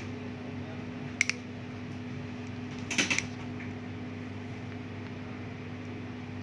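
Small sharp clicks of a flat ribbon cable being worked by hand: a double click about a second in and a short cluster of clicks at about three seconds, over a steady low hum.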